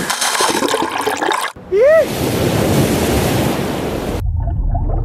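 Ocean surf washing and breaking, with a short whooping shout that rises and falls about two seconds in. Near the end the sound drops to a low rumble.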